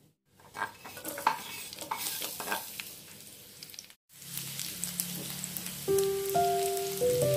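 Chopped shallots and garlic sizzling and crackling in hot oil in a ceramic-coated frying pan while a silicone spatula stirs them. Background music with held notes comes in near the end.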